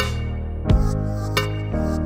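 Background music: held bass notes and chords, with a percussive hit about two-thirds of a second in and another near the middle.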